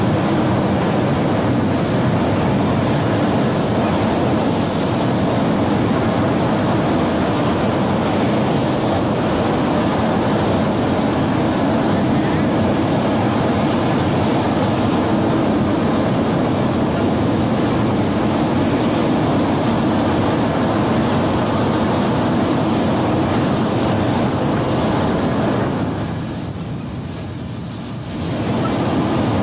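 C-17 Globemaster III jet engines idling on the ground, a steady loud rumble and rush. The level dips for a couple of seconds about 26 seconds in.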